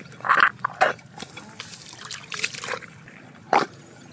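Wet mud squelching and sucking in several short bursts as a hand and forearm are worked down into a waterlogged crab burrow.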